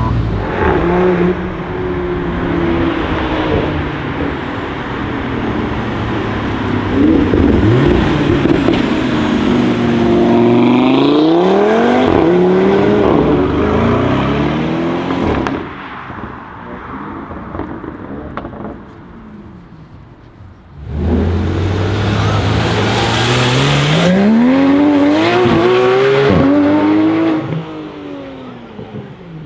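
Audi RS6 C7 Performance's twin-turbo V8 through an Akrapovic exhaust, revving and accelerating hard, the pitch climbing and dropping back at each gear change. After a quieter stretch midway, a sudden loud pull starts, its pitch rising for about five seconds before it fades near the end.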